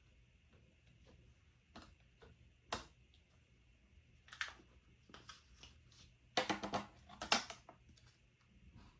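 Small plastic stamping-tool parts and an ink pad handled on a stamping platform: scattered light clicks and taps, with a quick flurry of taps about six and a half seconds in and another short one a second later.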